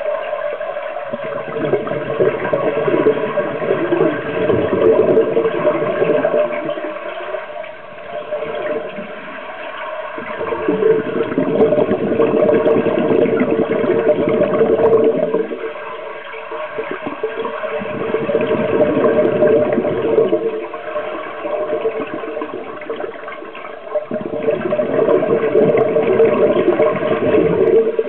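Scuba exhalation bubbles heard underwater: a bubbling rush that swells and fades in slow surges, each lasting several seconds, with each breath out through a regulator.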